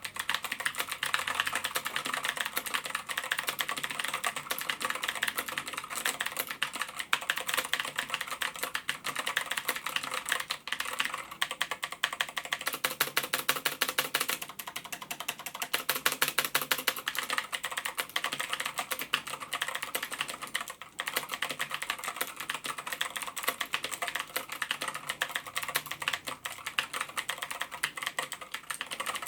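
Continuous fast typing on a mechanical keyboard with Gateron Blue switches, each keystroke a loud, sharp click, with a brief pause about 21 seconds in.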